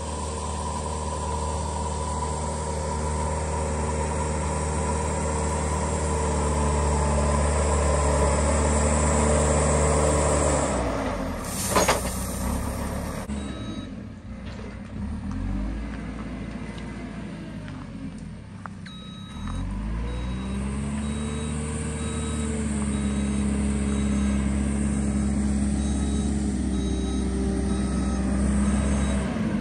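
Diesel engine of a backhoe loader running as it drives along a dirt track, its revs dropping and then rising again midway. A single short, sharp noise about twelve seconds in is the loudest moment.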